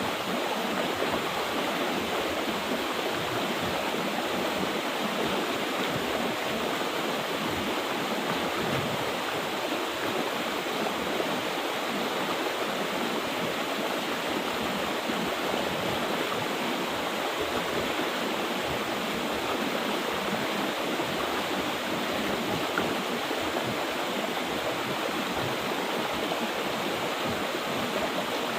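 Mountain river water rushing steadily over rocks, a continuous even stream sound with no let-up.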